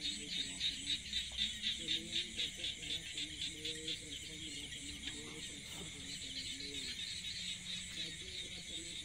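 Insect chorus: a high, steady buzzing that pulses about four times a second, strongest in the first few seconds.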